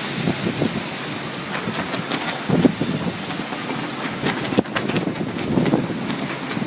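Hurricane-force wind blowing in gusts and buffeting the microphone, with a few sharp clicks about four and a half seconds in.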